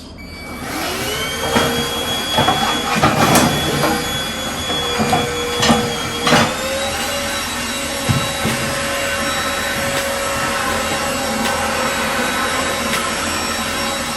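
Deerma VC01 cordless handheld vacuum cleaner switching on about half a second in, its motor whine rising and then running steadily. Knocks and rattles of the nozzle working over a surface come during the first several seconds, and the motor's pitch steps up slightly about halfway through.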